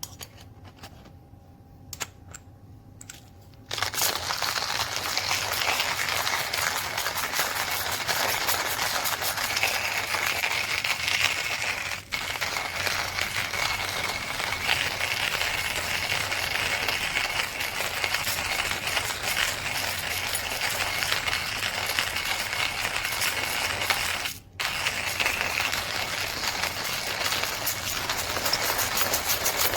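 KitchenAid burr coffee grinder grinding coffee beans: a few clicks, then a dense, steady crackling grind that starts about four seconds in and runs on, broken by two brief gaps.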